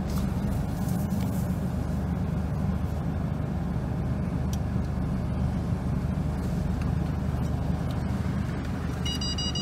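Mercedes-Benz GLK 250 moving slowly in reverse, heard from inside the cabin as a steady low rumble. Near the end a rapid electronic warning beep starts, the parking sensors sounding while the car backs up.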